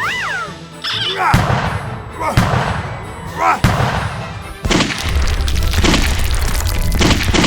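Background music mixed with cartoon-style sound effects. There is a quick swooping pitch glide at the start, then a string of heavy thuds and knocks, and a steady low rumble through the second half.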